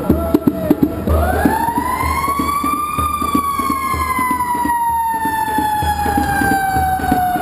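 Fire engine siren winding up steeply in pitch, starting about a second in, then slowly falling away in one long wail.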